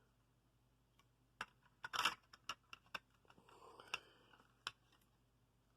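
Fire alarm horn strobe units being handled: a scattered series of faint light clicks and taps, the loudest about two seconds in, with a soft rustle shortly before the last few.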